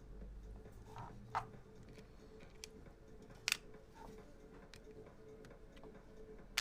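A few sharp clicks and taps of small magazine parts being handled during disassembly of an airsoft gas magazine; the loudest is a quick double click about halfway through.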